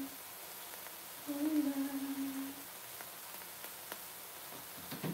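A woman humming one held note for about a second and a half, starting a little over a second in, over a faint steady hiss.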